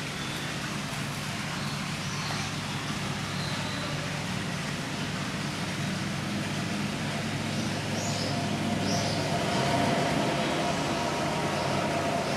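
Eurasian otter giving short, high-pitched chirping calls: a few faint ones early on, then two clearer ones about eight and nine seconds in, over a steady low hum.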